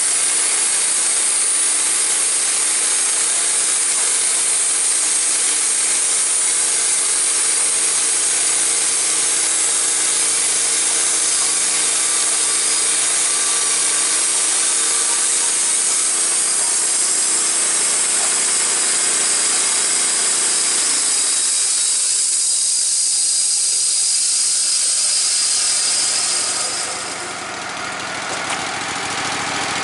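Wood-Mizer LT15 portable band sawmill sawing a white oak log: a loud, steady hiss of the band blade cutting, with the gas engine running under load beneath it. Near the end the sawing noise drops away, leaving the engine running unloaded.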